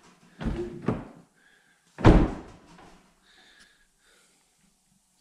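A 2015 Honda Accord's replacement door being swung and shut: a knock about half a second in, then a solid slam about two seconds in. The door closes cleanly, a sign that it sits well on the freshly tack-welded inner structure.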